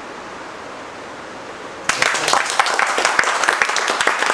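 A steady hiss, then about two seconds in a room full of people suddenly breaks into loud applause, many hands clapping at once.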